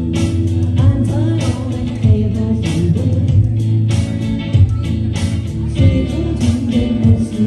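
A woman singing live while strumming an acoustic guitar in a steady rhythm.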